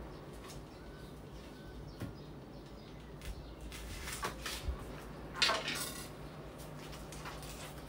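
Light kitchen clatter of dishes and utensils being handled: a few small clicks and knocks, the loudest a brief rattle a little past halfway. A faint steady hum underneath.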